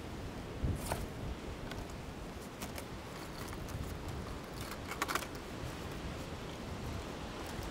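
Steady low outdoor noise of wind and sea, with a few short clicks and rustles of fishing tackle being handled, the clearest about one second in and about five seconds in.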